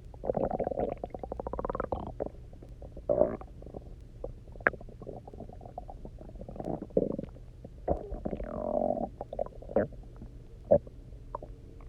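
Empty human stomach rumbling and gurgling after a 24-hour fast and a lot of water. A long rattling gurgle near the start is followed by scattered pops and short gurgles, then a longer gurgle about eight seconds in with a squeak that slides down in pitch.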